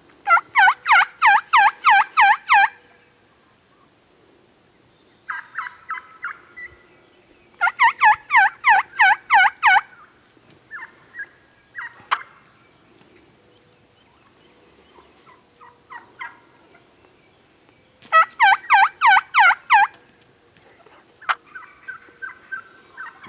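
Turkeys calling: three loud runs of about eight rapid swooping notes, each lasting about two seconds, at the start, about eight seconds in and about eighteen seconds in, with softer short calls between them and two sharp clicks.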